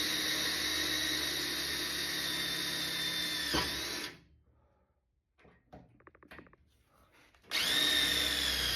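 Electric drill drilling out spot welds in the steel of a VW Beetle frame head, its steady whine dipping briefly under load. It stops about four seconds in, a few faint clicks follow, and the drill starts again near the end.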